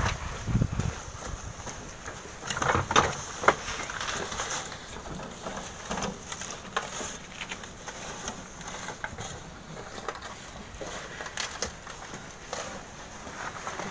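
Loaded steel wheelbarrows being pushed over rough, gravelly sand: irregular rattles, knocks and crunching steps, busiest about three seconds in.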